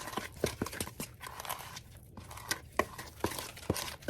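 Packaging crinkling and being torn, with scattered sharp clicks and knocks, irregularly spaced.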